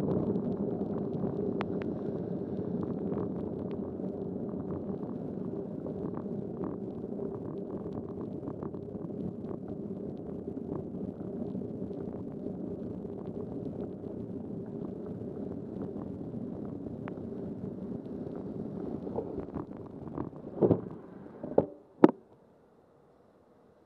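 Steady rushing rumble of a bicycle rolling along a wet road, picked up by a bike-mounted camera. A few sharp knocks come about twenty seconds in, and then the noise drops away almost to quiet as the bike comes to a stop.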